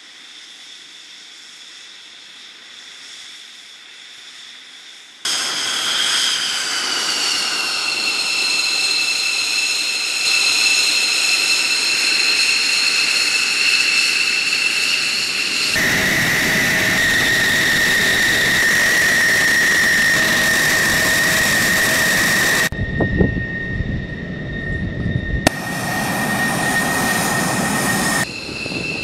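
F-16 fighter jet engines whining on the ground, heard in several short clips cut one after another. About five seconds in, a louder whine drops in pitch and then holds steady. Around the middle a louder stretch follows, with a steady whine over rushing exhaust noise.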